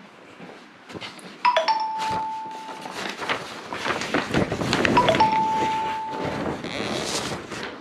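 Paper rustling and crackling as a large folded poster is handled. An electronic chime sounds twice, each a short higher note dropping into a held tone of about a second.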